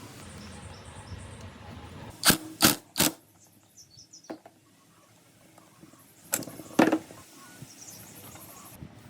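Sharp knocks on something hard: three in quick succession about two seconds in, then two more a few seconds later, with faint clicks in between.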